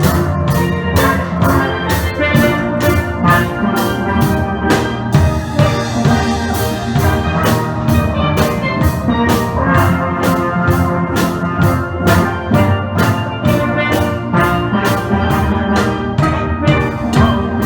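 A steel band of steelpans playing a tune together, with a steady drum beat underneath.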